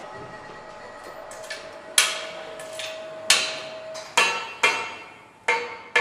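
Metal engine parts and hand tools clinking during V8 engine assembly: about half a dozen sharp, irregularly spaced metal taps, each ringing briefly. A steady metallic ring stops about four seconds in.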